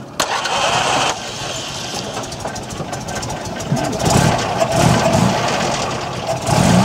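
Rally car engine started from the driver's seat: it turns over briefly and catches about a second in, then runs steadily at idle. A few voices are heard over it.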